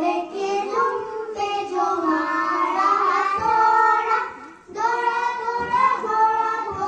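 A child singing a sustained melody, breaking off briefly about two-thirds of the way through before going on.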